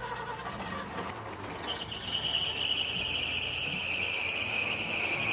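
1963 Chevrolet Suburban engine running just after being started, a steady noise that slowly grows louder. About a second and a half in, a high whine joins it and drifts slowly lower in pitch.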